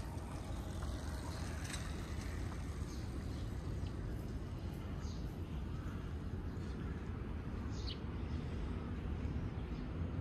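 Calico cat purring on a lap, a steady low rumble close to the microphone, with a few faint high chirps over it.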